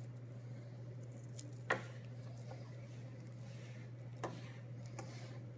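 Cotton fabric being handled: a pillowcase is folded, laid down on a wooden table and smoothed by hand, with soft rustling and a few short knocks, the sharpest a little under two seconds in. A steady low hum sits underneath.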